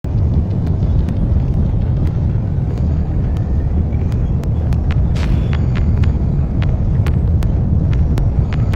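Heavy machinery, an excavator with a conveyor, running with a loud steady deep rumble, with frequent sharp clicks and knocks on top.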